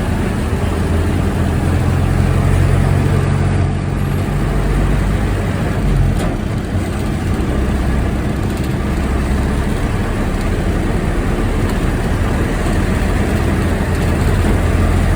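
Bus engine running with a steady low drone, and a single click about six seconds in.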